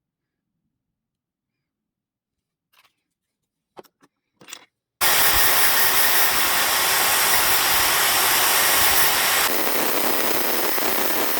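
A few light handling clicks, then about halfway through a small high-speed 550-size electric motor, salvaged from a vacuum cleaner, switches on abruptly and runs with a loud, steady whir. Its tone shifts slightly a few seconds later.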